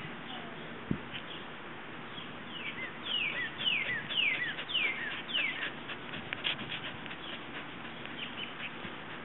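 A songbird singing a run of about seven quick notes, each sliding down in pitch, starting a few seconds in, over a steady outdoor background hiss.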